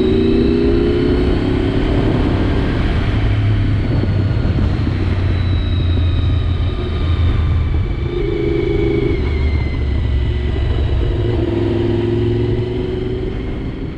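Honda VFR750's V4 engine running under way with wind rush, its note rising and easing a few times with the throttle.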